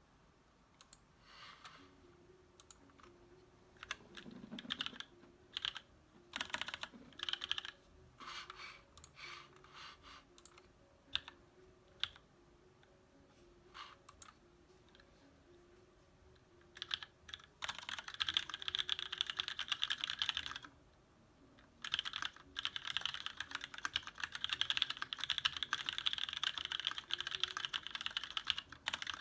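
Typing on a TX1800 aluminium-case custom mechanical keyboard with lubed Cherry MX Black linear switches and thick ABS Cherry-profile keycaps. Scattered single keystrokes and short runs for the first half, then fast continuous typing with one short pause a little past the middle.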